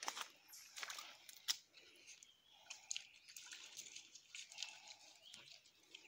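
Footsteps crunching and clicking on a stony, leaf-littered woodland trail: faint, irregular steps.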